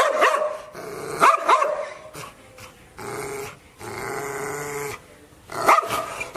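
Dog barking and growling: sharp barks at the start, about a second in and near the end, with longer snarling growls in between.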